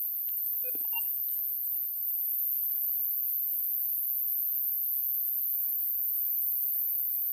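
Steady high-pitched chorus of insects, pulsing a few times a second, with a few brief tones about a second in.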